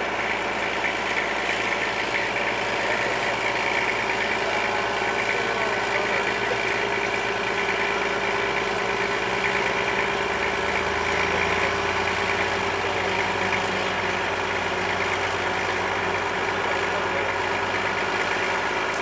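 Heavy vehicle engine running steadily, its low note rising slightly about halfway through as the load comes up.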